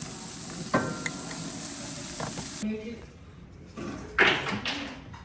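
Busy-room din of voices with a clink of dishes, cutting off abruptly about two and a half seconds in to a quieter room, where a short, sharp noisy burst sounds about a second later.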